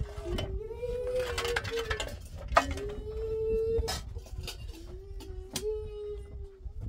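A child's voice in long drawn-out notes, each held level for about a second with short breaks between, and a few sharp knocks in between.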